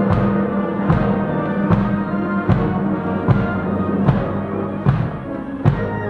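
Military band playing a slow funeral march: sustained brass chords over a steady drum stroke a little less than once a second.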